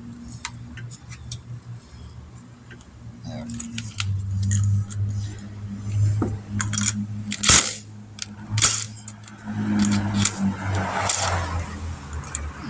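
Metal clinking and sharp knocks of a wheel and its lug nuts being handled while remounting a car's wheel, with a steady low hum underneath that grows louder about four seconds in.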